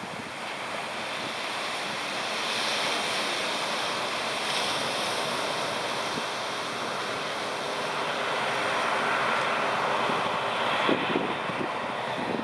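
Sea surf washing onto the shore, an even rushing that slowly swells louder, with wind buffeting the microphone.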